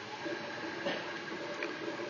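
MakerBot 3D printer printing: its stepper motors give steady electronic tones, like an 80s arcade game, over the running of its cooling fan.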